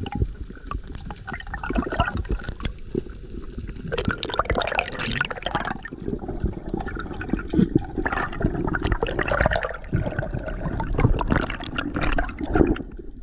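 Water rushing and bubbling against an underwater action camera as a freediver swims up toward the surface, with scattered clicks and crackles throughout.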